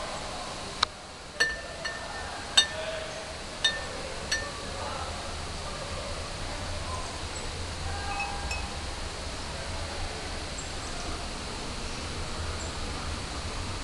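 A run of six light clinks, each ringing briefly at a high pitch, in the first four and a half seconds. After them comes a steady outdoor hiss with a low rumble.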